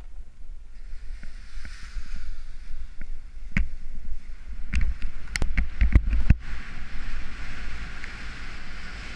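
Wind rushing and buffeting over the microphone during a fast ski descent on snow, with a steady low rumble and hiss. A run of sharp knocks and clicks comes about halfway through.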